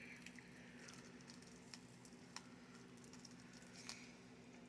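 Near silence: a low steady hum with a few faint, scattered clicks and crinkles of plastic shrink-wrap being picked at on a DVD case.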